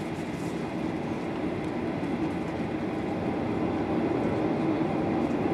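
Cabin noise of a Boeing 737-800 taxiing, heard from a window seat: a steady rumble and hum from its CFM56 engines at low thrust, growing a little louder in the second half.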